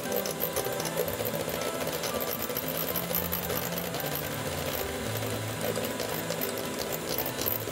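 Electric hand mixer running steadily, its twin beaters whisking egg whites to a foam in a glass bowl.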